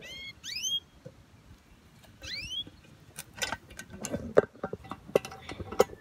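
A bird gives two short calls that rise in pitch, one at the very start and another about two seconds in. From about three seconds on come a string of sharp clicks and knocks, the loudest about four and a half seconds in.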